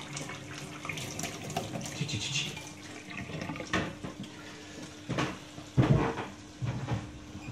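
Kitchen tap running steadily into a stainless steel sink, with a few sharp knocks and clatters in the second half, the loudest about six seconds in.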